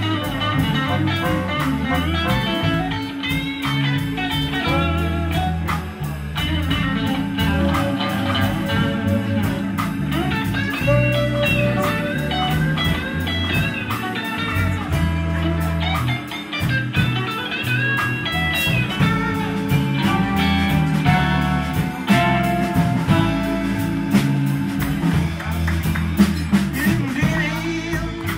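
Live blues band playing: electric guitar, electric organ, bass and drums, with a blues harmonica (harp) wailing bent notes over them.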